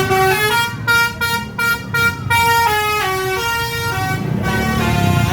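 Bus's telolet Basuri multi-tone musical horn playing a quick tune of short stepped notes, over a low engine rumble.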